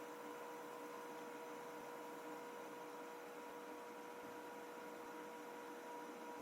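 A faint, steady machine hum with a constant whine, over a light hiss.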